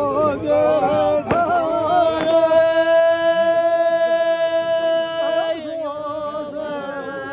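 Music with singing: a wavering, ornamented sung melody, then one long steady note held for about three seconds before the melody moves on. A sharp click sounds about a second in.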